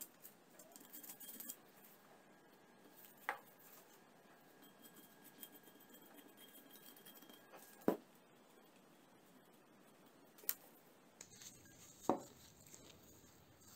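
Quiet scraping of a small metal spatula pressing powder into drilled holes in a steel pipe. A few light clicks and knocks sound as the spatula taps the pipe and the powder dish.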